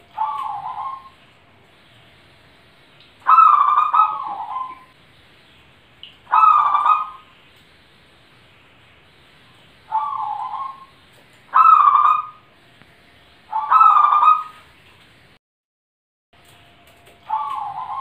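Caged zebra dove (perkutut) cooing: seven short, rolling coo phrases, each about a second long, repeated every two to four seconds.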